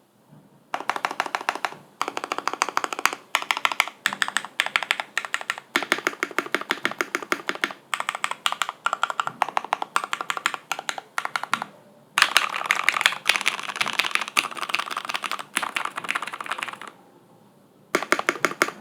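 Typing on an OTD 356 Mini mechanical keyboard with lubed vintage Cherry MX Black linear switches on an aluminium plate and Cherry POM keycaps: fast runs of key clacks in bursts, with a short pause about 17 seconds in.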